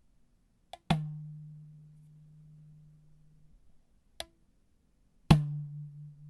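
Two cartoon-style boings. Each starts with a small click and a sharp twang, then rings on as a low hum for a couple of seconds. The first comes about a second in; the second comes near the end, and its hum wavers as it rings.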